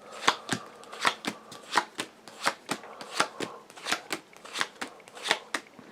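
A tarot deck being shuffled by hand: a steady run of quick card slaps, about four a second.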